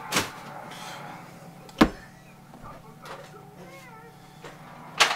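Clear plastic storage tubs being handled and set down: a few sharp knocks, the loudest about two seconds in, and two more near the end.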